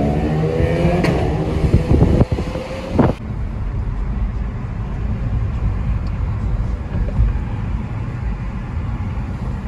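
Car driving, heard from inside: the engine's pitch rises as it accelerates in the first second, there are two sharp knocks about two and three seconds in, and then a steady low rumble of road noise runs on.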